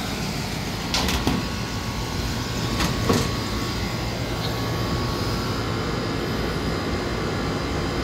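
Old Carrier rooftop package unit running, its belt-driven blower turning with a worn, slipping belt: a steady mechanical hum with a few brief sharp noises about one second and three seconds in.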